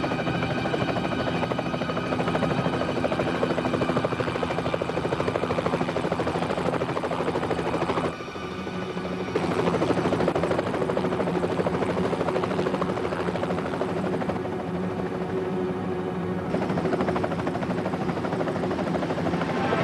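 Helicopter hovering, its rotor beating rapidly over a steady engine whine. The sound drops for a moment about eight seconds in, then comes back at full level.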